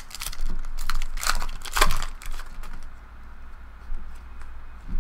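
Trading cards being handled and flipped through by hand: quick dry rustles, flicks and clicks as the cards slide against each other, busiest in the first two seconds and lighter after.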